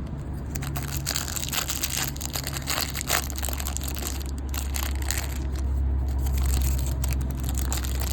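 Plastic poly wrapper of a trading-card pack being torn open and crinkled by hand, an irregular crackling, over a steady low hum.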